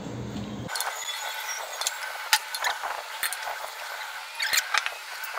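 Light clinks and taps of utensils against dishes, a few scattered strikes with the sharpest about two seconds in and a small cluster near the end. A low background hum stops abruptly just under a second in.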